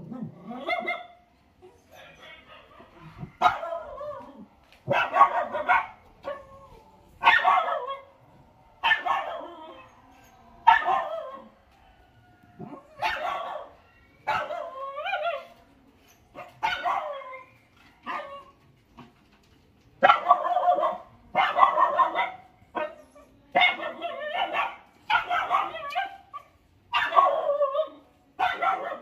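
A dog barking over and over, a bark or a quick pair of barks every one to two seconds.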